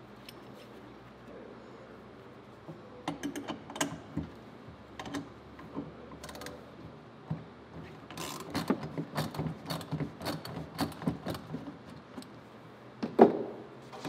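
13 mm socket ratchet and wrench clicking in short irregular runs as the bolts holding a floor scrubber's solenoid valve bracket are loosened, with metal tool clatter. One louder knock comes near the end.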